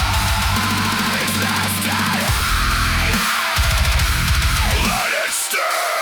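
Deathcore music: heavy down-tuned guitars and drums in a stop-start breakdown, the low end cutting out briefly about two seconds in and again about five seconds in.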